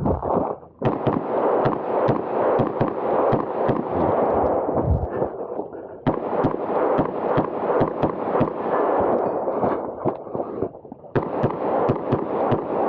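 Pistol gunfire during a timed action-pistol stage: many sharp shots in quick succession with echo. The shots break off briefly about half a second in and again near eleven seconds, then resume.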